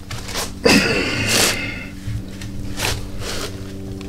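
Shipping labels being peeled apart and plastic mailer bags rustling, in short scratchy bursts about half a second apart, over a low steady hum.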